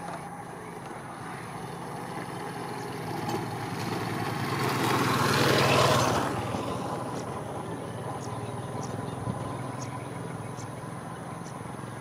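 Small motorcycle passing close by: its engine grows louder, peaks about six seconds in, then fades away.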